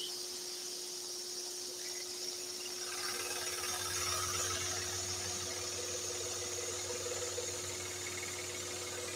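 Scroll saw running, its blade reciprocating as it cuts along a marked line in an oak board, with a steady hum and hiss. The cutting sound fills out and grows a little louder about three seconds in as the blade bites into the wood.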